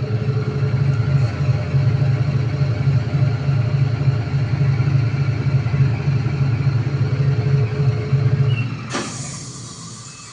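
IFB top-load washing machine drum spinning with a loud, steady low drone: the excessive spin noise that is the fault being diagnosed. About nine seconds in, the drone stops and only a fainter hiss remains.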